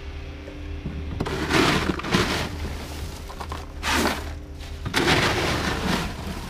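Clattering, crunching handling noises from plastic fish crates and their contents being worked on a boat: four or five separate bursts over a low steady hum.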